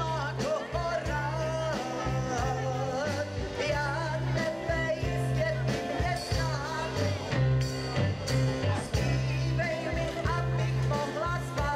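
A woman singing live into a microphone, backed by a band with a six-string electric bass holding low sustained notes and drums.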